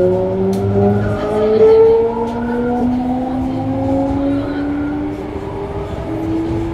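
Mitsubishi GTO-thyristor VVVF inverter of a Toei 5300 series train accelerating, heard inside the car: a whine of several tones rising slowly in pitch, with steps in pitch about two seconds in and again near the end as the inverter changes mode, over the low hum of the running train.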